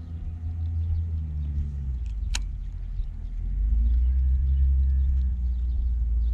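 Bass boat's motor running with a steady low rumble, getting louder about three and a half seconds in. One sharp click about two seconds in.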